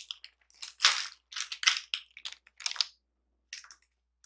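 Crinkling of a plastic instant-ramen wrapper being handled, in a run of irregular crackles with a few more near the end.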